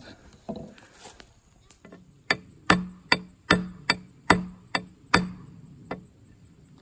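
A rock pounding a metal step wedge into the end of an axe handle through the eye of the axe head. It gives about nine sharp knocks, roughly two and a half a second, starting about two seconds in, as the wedge is seated to flare the handle and lock the head on.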